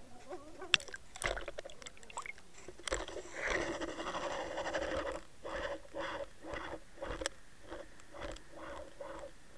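Underwater sound picked up through a camera housing as it sinks with a bucktail jig: sharp knocks and clicks, then a rush of water noise, then soft pulses about twice a second over a steady low hum.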